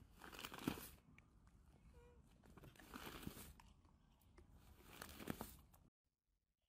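Plastic feed sack crinkling and rustling under monkeys' hands, in three louder bursts, cutting off suddenly near the end.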